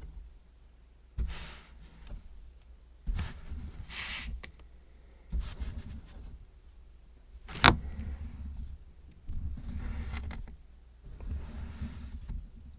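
Kinetic sand being scraped and cut by a metal tool in repeated gritty strokes, about one every two seconds, each lasting a second or so. A sharp click about two-thirds of the way through is the loudest sound.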